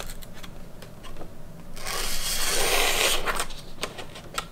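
Sharpening stone on a KME guided sharpener scraping along the edge of an ARRPM9 steel knife blade. A steady scrape starts about two seconds in and lasts about two seconds, after a stretch of faint light clicks.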